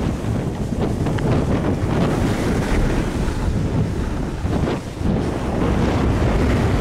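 Wind buffeting the microphone of a camera carried down a ski slope on a moving snowboard, with the hiss of the board sliding and scraping over packed snow. The noise is loud and unbroken, with short scraping streaks where the edge bites.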